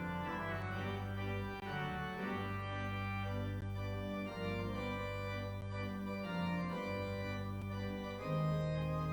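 Organ music: slow, held chords over a sustained bass note that moves every second or two, with a fuller, louder chord entering near the end.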